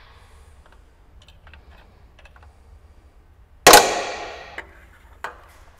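A single sharp crack about three and a half seconds in, its hissing tail fading over most of a second, followed by a few light clicks and taps.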